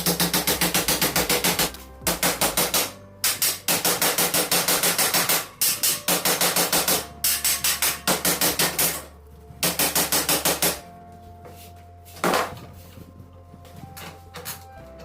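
A hammer tapping rapidly and evenly, about eight blows a second, in runs of a second or two with short pauses, straightening a piece for the screen. The tapping stops about eleven seconds in, with one more single knock a second later.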